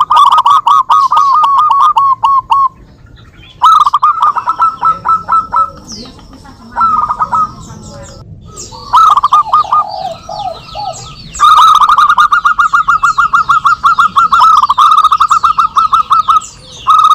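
Zebra doves (perkutut) singing, trading phrases back and forth: runs of rapid, evenly repeated cooing notes broken by short pauses, with the longest run of about five seconds in the second half.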